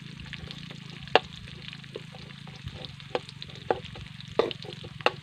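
Chopped onion, garlic and ginger sizzling in hot oil in a metal wok while a metal spatula stirs them. The spatula clicks sharply against the pan about five times.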